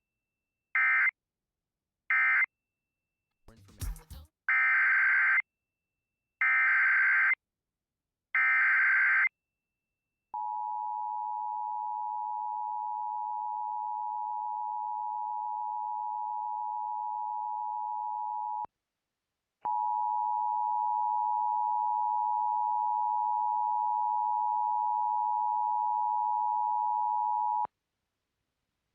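Emergency Alert System tones from a Sage EAS Endec. Three short data bursts end the previous alert; after a click, three longer data bursts carry the header of the next alert. Then a steady attention tone sounds for about eight seconds, stops for a second, and a second, louder steady tone runs about eight seconds more.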